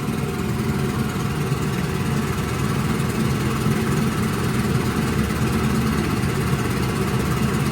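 1954 Johnson CD-11 5.5 hp two-cylinder two-stroke outboard motor idling in forward gear in a test tank, running smooth and even. The idle is absolutely fantastic.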